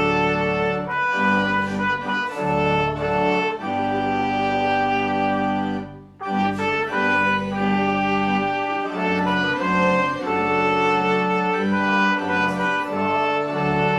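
Hymn music in held chords of sustained notes, with a brief break between phrases about six seconds in.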